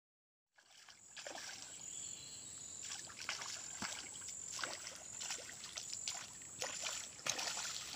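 Water splashing and sloshing with irregular knocks and clicks, starting about half a second in.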